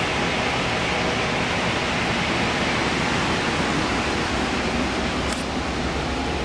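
Steady rushing noise inside an LIRR C3 bi-level passenger car, with a low hum underneath.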